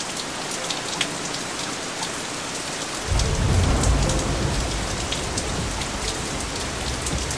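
Steady rain falling, with many individual drops ticking sharply. About three seconds in, a deep low rumble joins in and stays under the rain.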